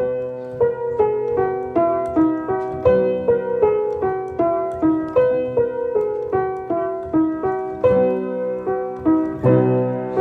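Keyboard playing the instrumental interlude of a slow worship song: struck notes about two a second, each fading away over held chords underneath.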